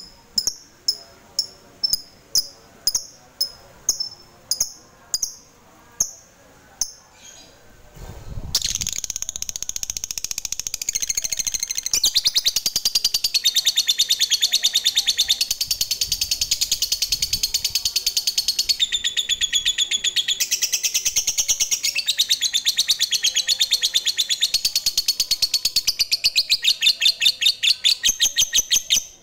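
Caged lovebird calling: sharp single chirps about twice a second that fade away, then from about eight seconds in a long, fast, unbroken chattering trill, the 'ngekek' that lovebird keepers prize, which stops abruptly at the end.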